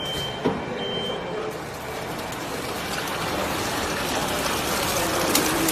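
Horizontal flow-wrapping machine running: a steady mechanical noise that grows louder over the last few seconds. Two short high beeps sound in the first second and a half.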